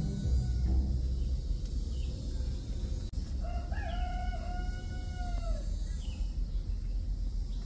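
A rooster crowing once: a single drawn-out call of about two seconds midway through, over a steady low rumble.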